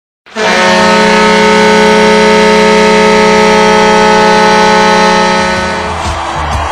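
Peoria Rivermen hockey goal horn: one long, loud, steady blast sounding several tones at once as a chord. It lasts about five and a half seconds, then dies away near the end as music begins.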